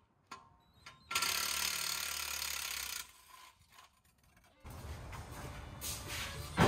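A scissor jack's screw being turned with a ratchet wrench. A couple of single clicks come first, then about two seconds of rapid ratcheting, then it goes quiet. A sharp knock comes at the very end.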